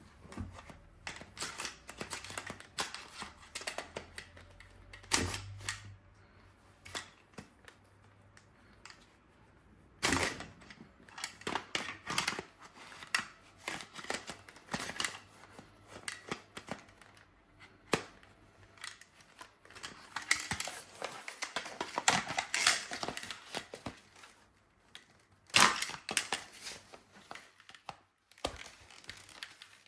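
Irregular clicks, taps and clatter of small objects being handled, with a stretch of rustling about two-thirds of the way through.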